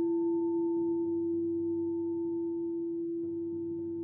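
Singing bowl ringing after a strike: one steady low tone with a fainter higher overtone, slowly fading.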